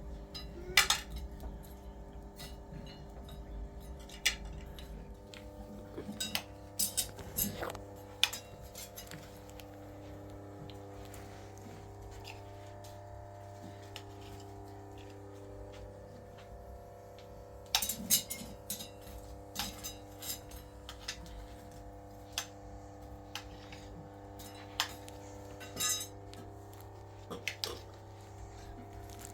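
Scattered sharp clinks and knocks, coming in clusters, over a steady hum.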